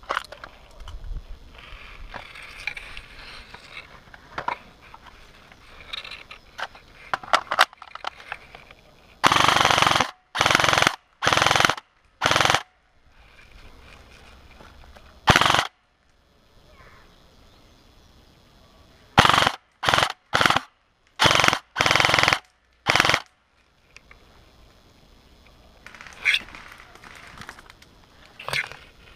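Airsoft rifles firing short bursts, about a dozen in all: a cluster about a third of the way in, a single burst near the middle, and a rapid run of six about two thirds of the way in. Quieter clicks and rustling come before the first bursts.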